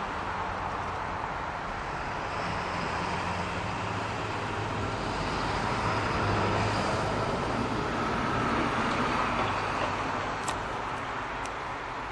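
Diesel locomotive of an MBTA commuter train approaching, its engine droning low and steady over the rumble of the train, swelling slightly as it nears. A few sharp clicks near the end.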